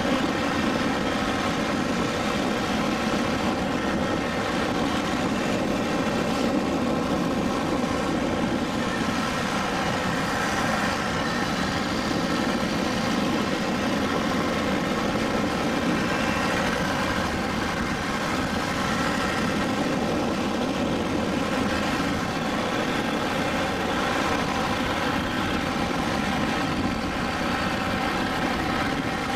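Motor scooter riding at a steady speed: an even engine drone over continuous road and wind noise.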